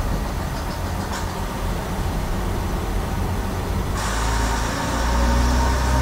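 Inside a BR Class 142 Pacer railbus: its Leyland TL11 diesel engine running steadily at first, then opening up about four seconds in as the unit accelerates away from a station, the engine note beginning to rise.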